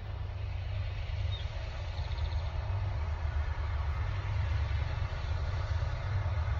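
Norfolk Southern diesel locomotives running as the train approaches from the tunnel: a deep low rumble that grows slowly louder.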